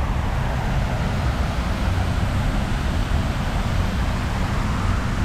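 Steady vehicle noise: a continuous low rumble with a hiss over it and no single event standing out.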